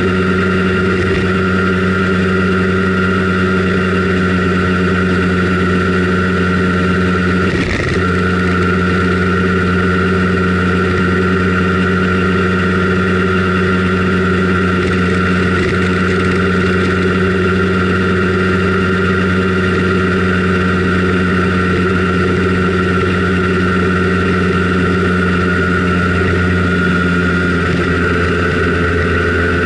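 Simson Schwalbe KR51/2's 50 cc single-cylinder two-stroke engine running steadily at cruising speed, with a brief break in the engine note about eight seconds in.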